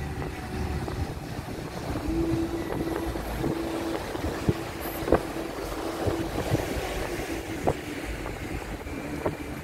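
Sea waves breaking and washing up a sandy beach, with wind rumbling on the microphone. A faint steady hum runs through the middle, and a few sharp clicks stand out.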